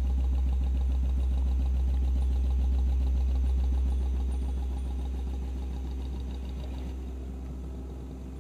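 Workshop machinery running with a steady deep hum and a fast rattle, fading away over the second half.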